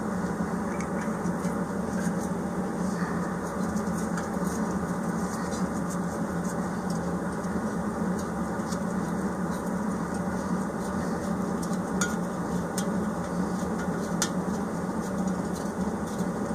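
Steady low room hum from background machinery, with a few faint clicks from a hand screwdriver turning screws into the heater's aluminium housing, mostly in the last few seconds.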